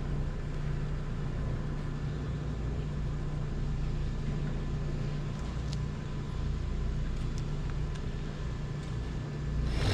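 Steady low rumble of a running vehicle engine with a steady hum, a few faint ticks, and a brief louder noise near the end.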